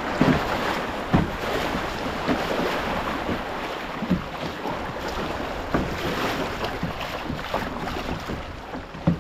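Creek water rushing over a shallow riffle around a kayak, with repeated splashes as a double-bladed kayak paddle dips in stroke after stroke.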